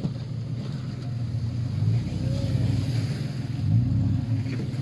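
Jeep Grand Cherokee 4x4 engine running low and steady while the vehicle sits in a muddy creek, with a brief rev about four seconds in.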